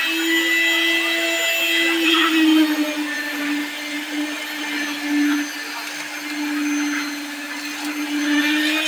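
A small motor running steadily with a constant hum that wavers slightly in pitch.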